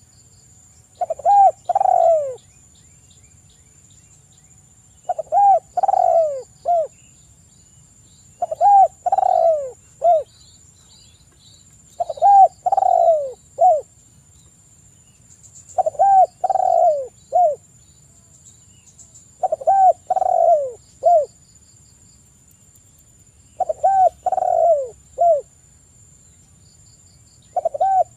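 Spotted dove cooing: about eight phrases, each of three or four falling coos, repeated roughly every three and a half seconds.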